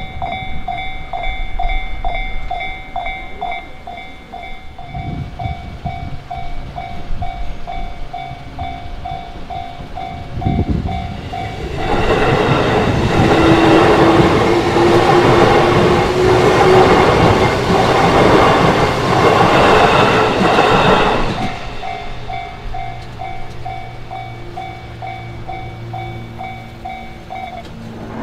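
Japanese railway level-crossing warning bell ringing in a steady repeating electronic clang, stopping near the end. An electric train passes through the crossing for about ten seconds from about twelve seconds in, its wheels clacking over rail joints under a slowly rising whine.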